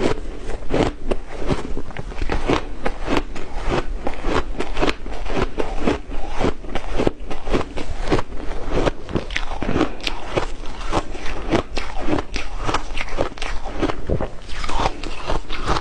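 Close-up crunching of powdery ice being bitten and chewed: dense, crisp crunches several times a second, with crackling between them.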